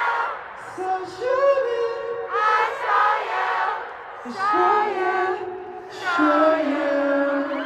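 Live singing over backing music, in sung phrases about two seconds long with short breaks between them and a steady lower note underneath.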